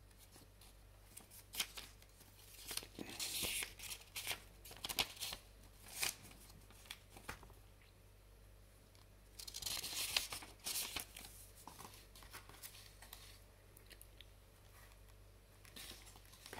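Sheets of paper rustling and crinkling in several bursts as a printed user manual and leaflets are handled, with light taps and clicks in between.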